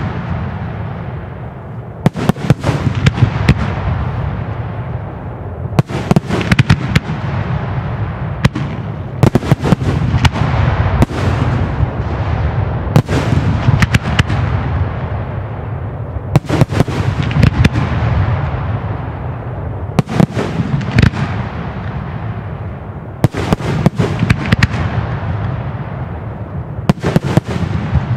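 Fireworks display: a cluster of sharp bangs goes off every three to four seconds, about nine times, and each trails into a low rolling rumble of echo.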